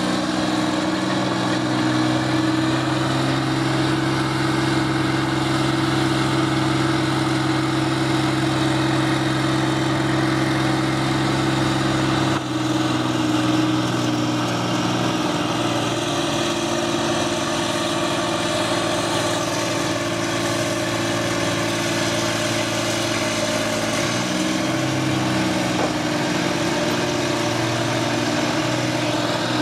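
Crawler loader's diesel engine running steadily, its pitch shifting abruptly about twelve seconds in and again a little before the end.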